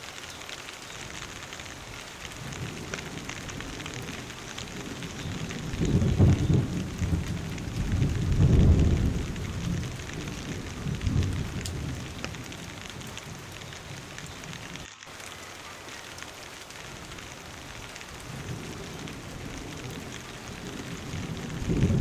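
Heavy rain pouring steadily onto foliage as an even hiss. A low rumble swells up a few times, loudest about a third of the way in and again at the very end.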